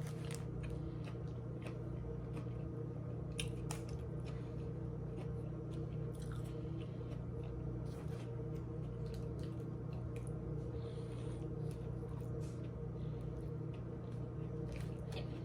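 Mouth sounds of someone biting into and chewing a soft tuna sub sandwich: irregular wet smacks and squishes, over a steady low hum.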